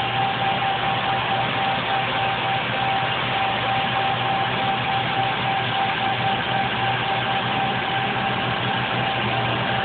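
Sea Ray 415's starboard inboard engine running steadily, heard up close in the engine room: an even drone with a constant whine on top. It runs smooth, a 1,055-hour engine that had a valve job at about 600 hours.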